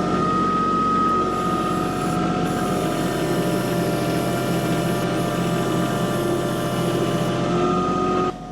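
Kubota diesel tractor engine running under load, with a steady hydraulic whine over the engine; the whine eases about a second in and comes back near the end, and the sound drops off sharply just before the end.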